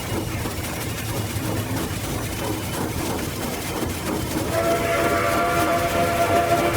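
A locomotive rumbling and clattering along the rails, then about four and a half seconds in its whistle starts up as a steady chord of several notes and is held on.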